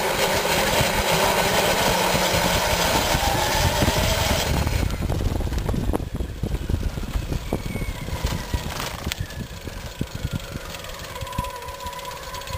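DC motor driving a homemade electric bicycle through a MOSFET PWM controller, running with a loud whine and hiss. About four and a half seconds in, the hiss drops away and the motor runs quieter, with a faint whine gliding up in pitch over the rumble of the wheels on the road.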